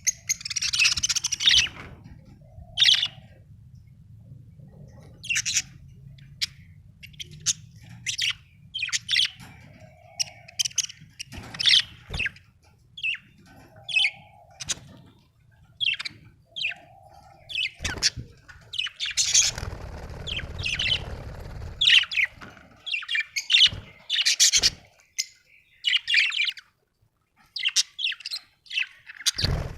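Budgerigars chirping and warbling in short, irregular calls, with a few low knocks and a brief low rumble partway through.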